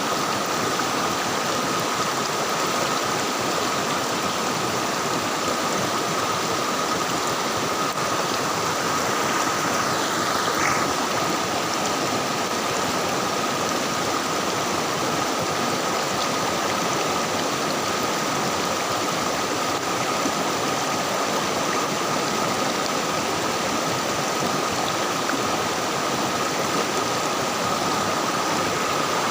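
River water flowing steadily, a continuous even rush with no break.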